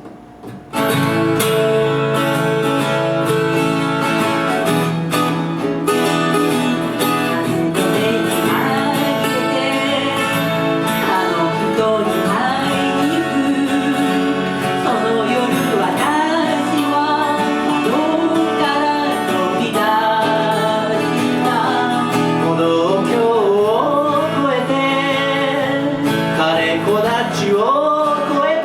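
Instrumental introduction of a Japanese pop ballad, with guitar and a lead melody line, coming in about a second in.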